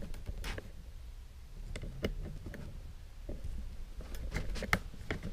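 Small metallic clicks and scrapes of wire being worked with pliers around a steel umbrella rib, coming irregularly, with a few sharper ticks about two seconds in and again near the end.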